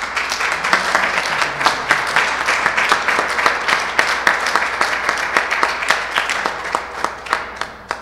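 An audience applauding: dense clapping that thins out and fades near the end.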